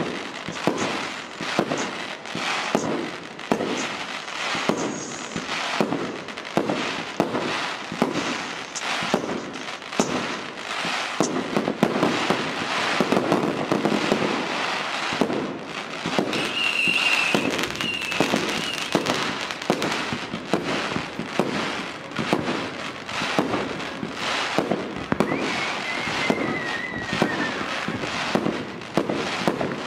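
Fireworks going off in a dense, continuous string of bangs and crackles. Just past halfway a short high whistle sounds, and near the end another whistle falls in pitch.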